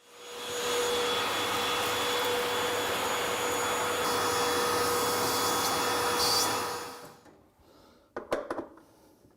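A vacuum cleaner runs steadily with a constant whine, cleaning dust from the refrigerator's condenser fan area. It spins up at the start and winds down about seven seconds in, followed by a few short knocks.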